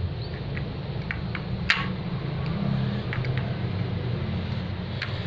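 Spoon and fork clicking and scraping on a glass plate as a soft pancake is cut, with one sharper clink a little under two seconds in, over a steady low hum.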